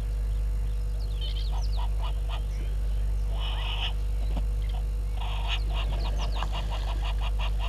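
Birds calling: scattered short notes and a few rising whistles, then from about five seconds in a rapid run of short honking notes, four or five a second, over a steady low hum.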